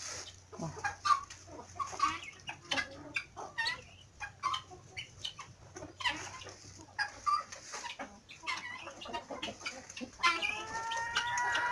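Chickens clucking: scattered short clucks and chirps, then one long drawn-out call near the end.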